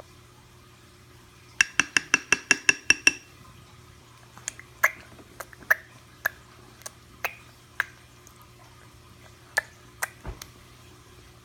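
Clicking: a quick run of about ten sharp, pitched clicks in a second and a half, then single clicks at irregular intervals of about half a second to a second.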